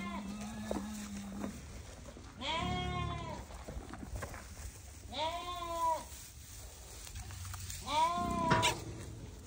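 A calf bawling three times, each high call lasting about a second and rising then falling in pitch. There is a sharp click near the end.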